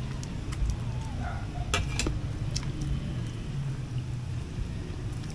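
A metal ladle clinking a few times against a metal cooking pot, sharp clicks about two seconds in, over a steady low rumble.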